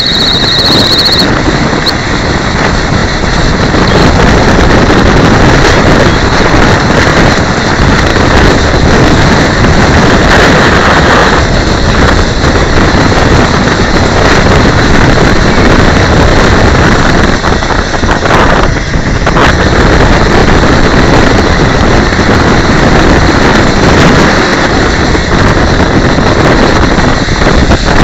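Loud, steady rolling and wind noise inside the shell of a human-powered pedal race car moving along the track. A high-pitched steady squeal cuts off about a second in.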